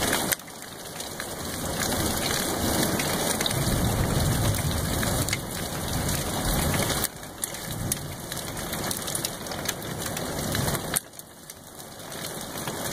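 Steady rain, with low rolling thunder swelling and fading in the middle. The sound drops away suddenly three times: about half a second in, about seven seconds in and about eleven seconds in.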